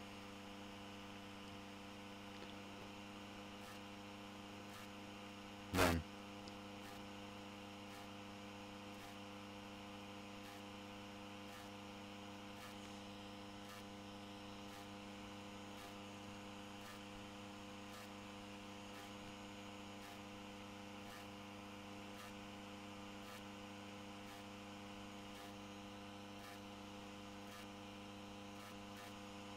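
Steady electrical hum made of several constant tones, with a brief pitched sound about six seconds in.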